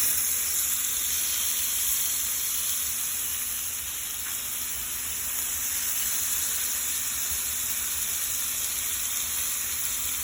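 Pieces of chicken breast sizzling as they fry in a pan, a steady high hiss.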